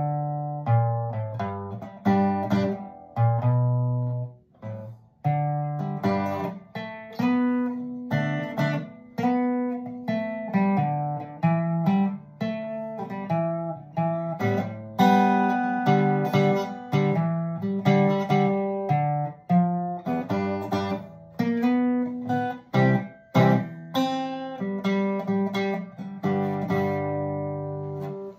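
Acoustic guitar in standard tuning playing a lead in the key of E, picked single-note melody over bass notes and chords. It closes on a held chord that is cut off abruptly.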